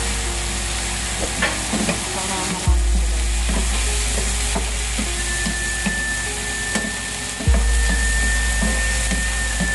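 Shrimp frying and sizzling in a hot pan, a steady hiss, while a utensil stirs them with scattered light knocks and scrapes against the pan.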